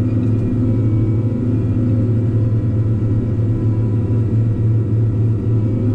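Tigercat 620 skidder's diesel engine running steadily, heard inside the cab as a constant low hum.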